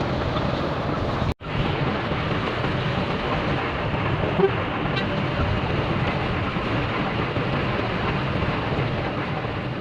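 Bus travelling on the road: steady engine and road noise, cut out for an instant about a second and a half in, with a short sharp sound about four seconds in.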